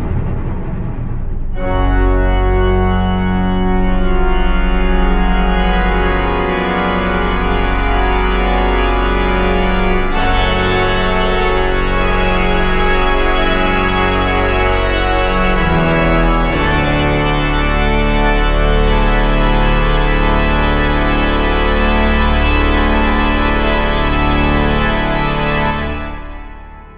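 Organ music: slow, sustained organ chords over a low bass, coming in about a second and a half in and fading out near the end.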